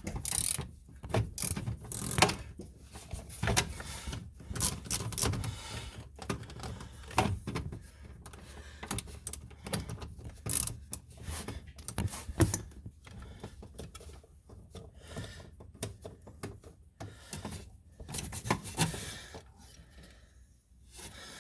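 Small ratchet with a 5.5 mm socket clicking in irregular runs as it backs out a steering-column shroud screw, with short knocks of tool handling.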